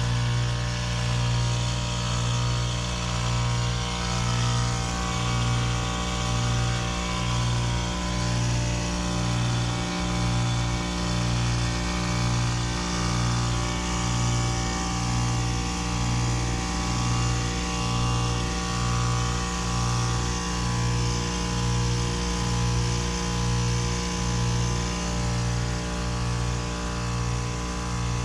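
2012 Lennox Merit heat pump outdoor unit running through a defrost cycle: a steady compressor hum that throbs evenly about once a second, with a hiss over it.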